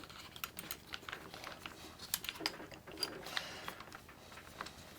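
Faint, irregular plastic clicks and taps from handling a belt sander and its bench clamps, a few per second.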